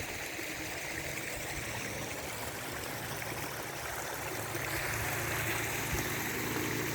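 Rainwater runoff trickling and splashing over a rock edge at the top of a small seasonal waterfall: a steady rush of water, a little louder toward the end.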